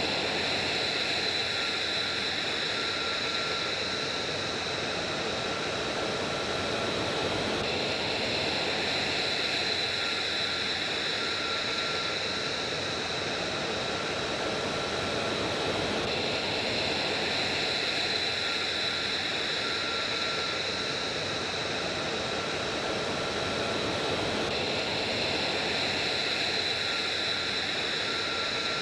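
Jet engines running: a steady rushing noise with a thin, high whine over it.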